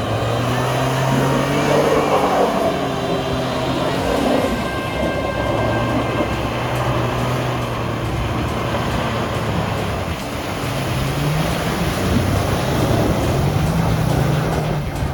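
An off-road vehicle's engine running under load and revving, its pitch rising and falling several times.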